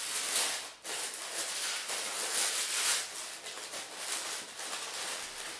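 Tissue paper rustling and crinkling as it is pulled open and folded back in a shoe box, a continuous crackly noise with a brief break about a second in.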